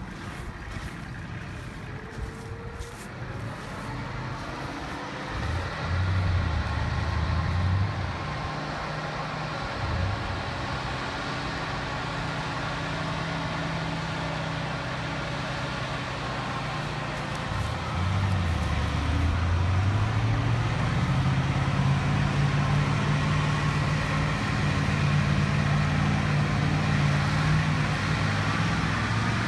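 ZIL truck's engine labouring through deep mud, revving in surges and then climbing in pitch and getting louder as the truck pulls through toward the listener.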